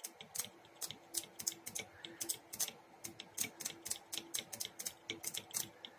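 Rapid, irregular sharp snapping clicks, about five or six a second, of sparks jumping the gaps of two spark plugs on leads from a four-tower VW ignition coil pack as its pin 3 is triggered by hand with a test lamp. The regular sparking shows that towers C and B of the coil are firing.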